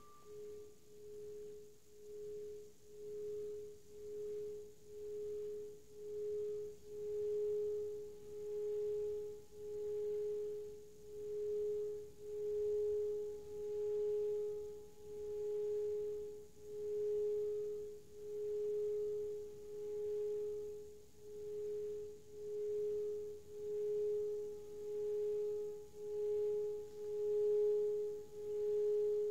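Metal singing bowl sung by rubbing a wooden mallet around its rim: a steady, pure hum with faint higher overtones. It swells and fades about once a second as the mallet circles, growing louder over the first several seconds.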